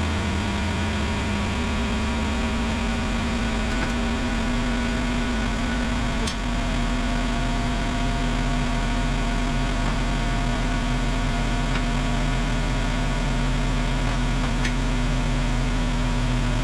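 An engine running steadily at a constant speed, with a small click about six seconds in.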